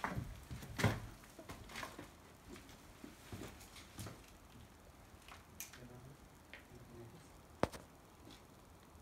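Footsteps on loose wooden planks and rubble: irregular knocks and crunches, the loudest knock about a second in, and a single sharp click near the end.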